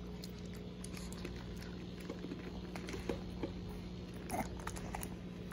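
A chihuahua licking and chewing thick, moist food off a spoon: faint, scattered wet smacking clicks.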